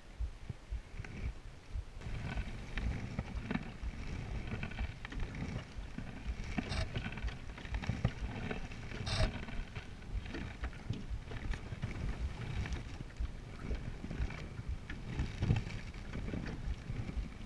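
Small open canoe being paddled on choppy open water: water sloshing against the hull and paddle strokes under a steady rumble of wind on a chest-mounted camera's microphone. Two brief sharp sounds come about seven and nine seconds in.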